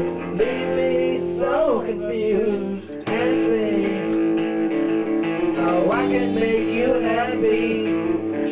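Teenage rock band playing live: male vocals sung into microphones over guitar chords, with a short break about three seconds in before the band comes back in.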